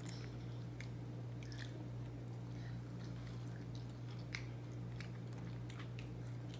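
Close-miked chewing and wet mouth clicks of someone eating Wingstop chicken, with a steady low hum underneath.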